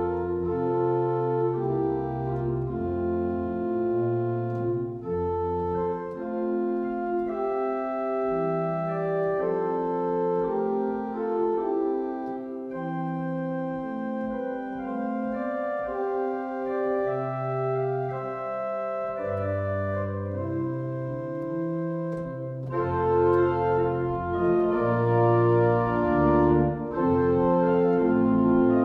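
Organ music: slow, held chords over a bass line that moves every second or two, growing louder near the end.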